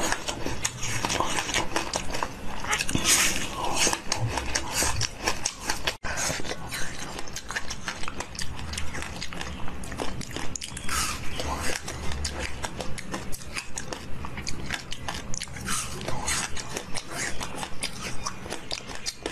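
Close-miked biting and chewing of hard frozen ice treats: repeated crisp cracks and crunches as pieces of ice are bitten off and chewed, with a momentary break about six seconds in.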